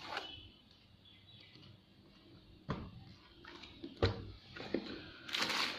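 Phone box and packaging being handled: a few separate knocks and taps, the loudest about four seconds in, then a short rustle near the end.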